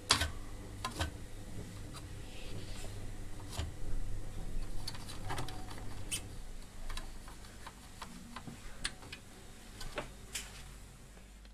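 Scattered light clicks and taps from an opened Samsung DVD P-181 player's disc and clamp being handled, over a low steady hum that drops away a little past halfway. The player still fails to spin up and read the disc, showing 'no disc'.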